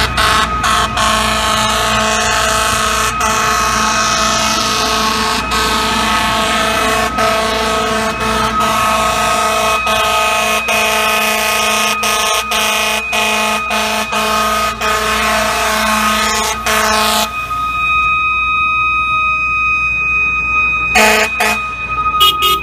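FDNY fire truck air horns blasting almost without let-up, a loud chord with many brief breaks, over the truck's siren. About seventeen seconds in the horn stops, leaving the siren sliding slowly down in pitch. A short horn blast returns near the end.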